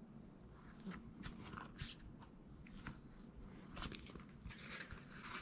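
Faint rustling and crinkling as hands flex and handle a Saguaro mesh water shoe and its insole, with short scrapes and light clicks. The handling is louder about two seconds in, around four seconds, and near the end.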